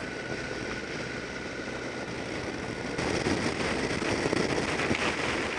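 Motorcycle being ridden along the road: steady engine and rushing road noise, getting a little louder about three seconds in.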